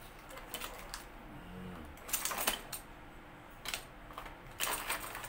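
Rummaging through loose wires and small parts in search of a connecting cable: scattered light clicks and rattles, with a few louder clatters in the second half.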